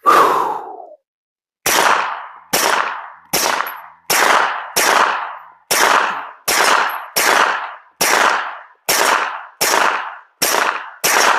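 Glock 19 9mm pistol firing a steady string of about fourteen shots, roughly one every three-quarters of a second, each shot ringing out briefly before the next.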